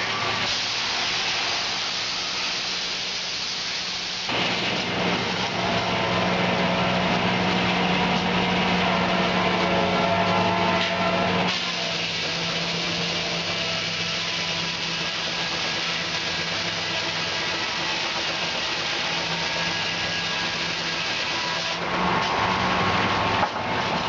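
Sawmill belt-driven by a Keck-Gonnerman steam traction engine, sawing a timber on the moving carriage. It runs with a steady hum that grows louder from about four seconds in to about eleven seconds in, then settles back.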